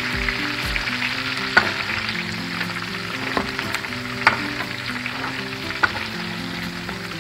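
Pork skin frying into chicharrones in hot lard, a steady sizzle broken by several sharp pops as the skin crackles and puffs while it crisps. A wooden spoon stirs the pieces through the bubbling fat.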